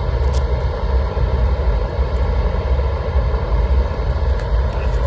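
Propane roofing torch burning steadily with a loud, rushing flame, as it heats a roofing patch so it will stick.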